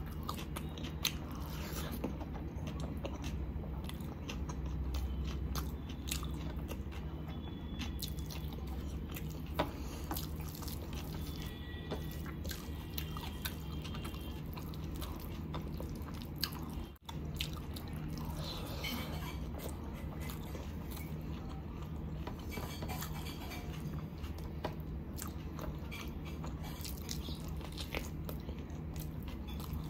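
Close-miked eating sounds of chicken biryani eaten by hand: chewing and mouth smacks, fingers squishing rice on a plate, and near the end a bite into a chicken leg piece. A steady low hum runs underneath, and the sound drops out for a moment about halfway.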